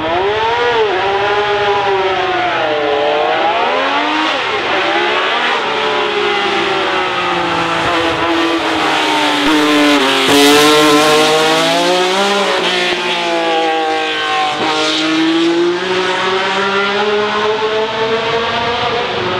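Racing car engines revving hard, the pitch climbing and dropping again and again through gear changes, loudest about ten seconds in.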